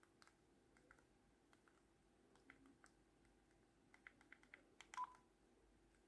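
Faint key tones of a teXet push-button mobile phone as a number is dialled on its keypad: a string of short beeps that come faster near the end. A slightly longer, louder beep about five seconds in comes as the call is placed.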